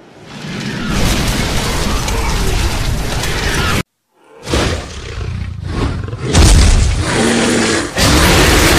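Stock sound effects in two parts: a steady rushing noise swells in and cuts off abruptly about four seconds in; after a short gap, a dragon's roar with deep rumbles, turning into a loud steady rush of fire breath near the end.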